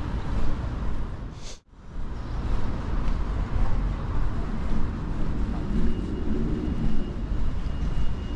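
Outdoor street ambience: a steady low rumbling noise of distant traffic. The sound cuts out briefly about one and a half seconds in.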